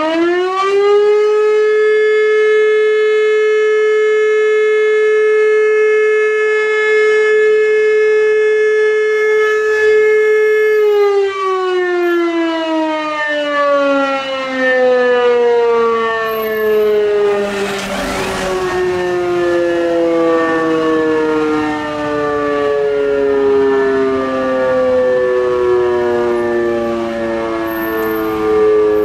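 E57 electric motor siren sounding the fire-brigade alarm: it winds up to full pitch about a second in, holds one steady tone for about ten seconds, then slowly winds down, falling in pitch. A brief rush of noise cuts across it about 18 seconds in.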